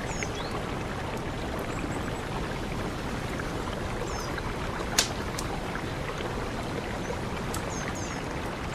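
Mountain river rushing steadily, with a few faint high chirps and one sharp click about five seconds in.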